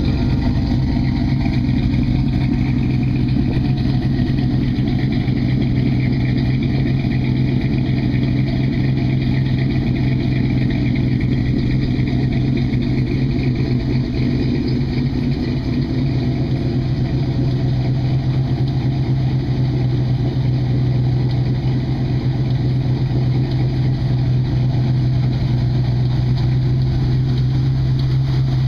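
1965 Chevrolet C10's 327 small-block V8 with a Comp cam, idling steadily through Flowmaster mufflers with a deep, even exhaust note that holds the same pitch throughout.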